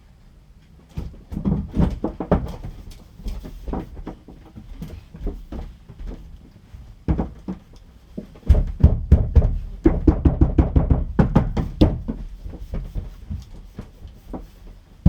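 Irregular knocks and thumps from hands-on building work in a small room, with a dense run of quick knocks from about eight and a half to twelve seconds in.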